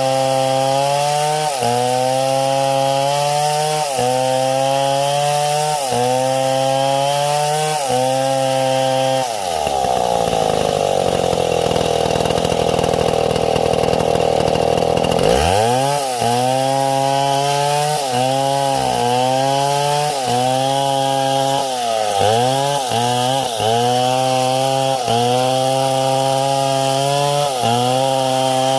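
Chainsaw running under load as it cuts wood, the engine speed dipping and recovering about every second and a half. About nine seconds in, the engine bogs down lower for several seconds as the chain bites deeper, then revs back up.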